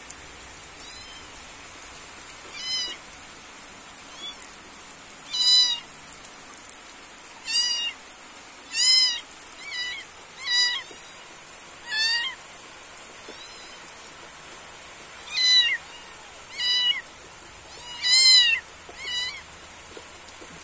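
An animal calling over and over, about a dozen short high calls, each rising and falling in pitch, against a steady hiss of falling rain.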